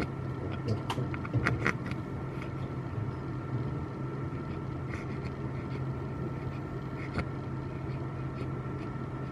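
Steady hum of neonatal incubator and breathing-support equipment, with a constant high tone over it and a few light clicks and knocks, most of them in the first two seconds.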